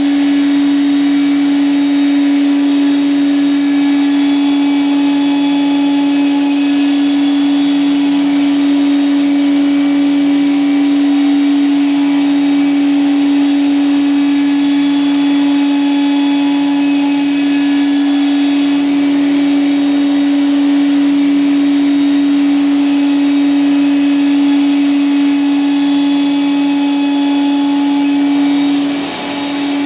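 Bacci CNC woodworking machine running, with a strong steady high hum and a continuous whir of machining noise; the level dips briefly near the end.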